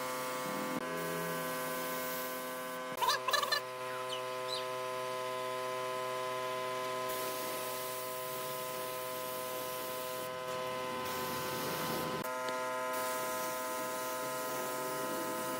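Compressed-air spray gun hissing in spells as it sprays finish, over a steady drone of held tones that change pitch a few times. A short bird call, likely a chicken's cluck, comes about three seconds in.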